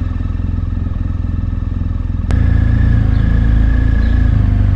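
Motorcycle engine running as the bike pulls away at low speed. A little over two seconds in there is a sharp click and the engine gets louder.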